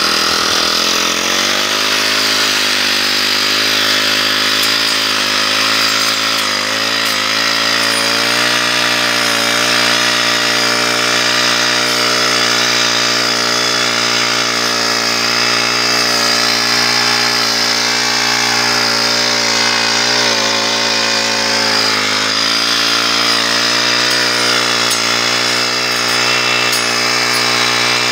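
Brush cutter's small engine running steadily at high speed, its pitch sagging briefly a few times, around a quarter of the way in and again past two thirds, as the blade bites into tall grass.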